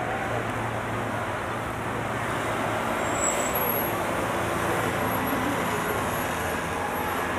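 Steady road traffic noise: vehicle engines running with a low hum, and tyre and street noise.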